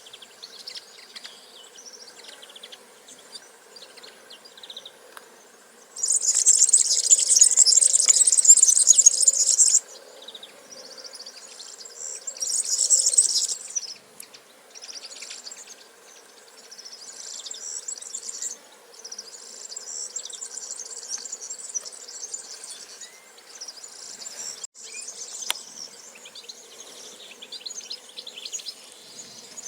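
Birds chirping amid a shrill, high-pitched buzzing that cuts in loudly about six seconds in, stops abruptly four seconds later, and returns briefly around thirteen seconds; softer scattered chirps fill the rest.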